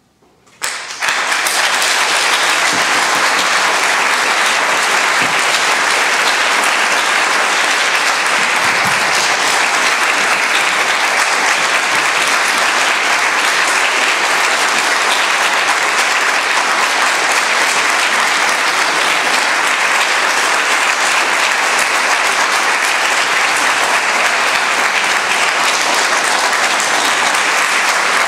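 Audience applause breaking out suddenly about a second in and going on steadily at the end of a piece of music.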